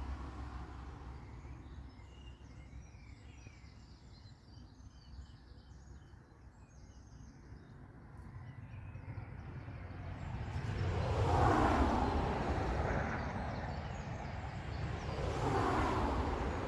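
Road traffic passing over the stone bridge: two vehicles swell up and fade away, the first peaking a little over ten seconds in and the second near the end, over a steady low rumble. Faint bird chirps in the first half.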